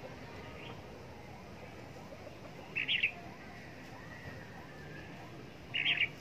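Red-whiskered bulbul giving two short, loud calls, about three seconds apart.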